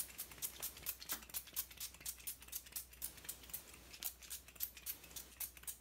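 A pump bottle of L.A. Girl Pro setting spray spritzed onto the face over and over in quick succession, short hissy puffs at about five a second, enough to put a lot on.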